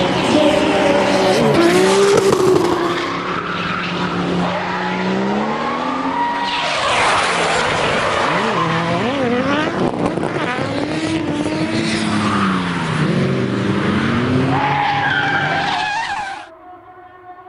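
Drift cars, among them a Toyota GT86 with a 2JZ engine, sliding through a corner: engines revving up and down over and over against the screech of tyres. The sound cuts off suddenly near the end, leaving a quieter steady hum.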